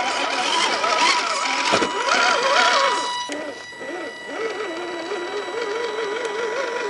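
Electric whine of an RC crawler's 28-turn brushed motor and drivetrain, its pitch wavering up and down as the throttle is worked while the truck crawls and climbs. A rougher gritty noise over the first three seconds comes from the tires on dirt and rock.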